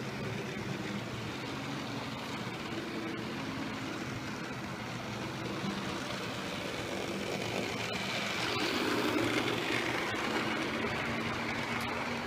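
Model Class 50 diesel locomotive hauling a train of coaches along the track: a steady motor drone with wheels rumbling on the rails, growing louder about eight seconds in as the train passes close.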